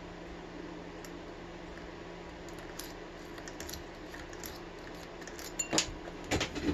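A lock pick works the pins of a Sesamee padlock's 5-pin cylinder, making faint light metallic ticks. Near the end come a few sharper, louder clicks as tension is lost and the set pins drop back.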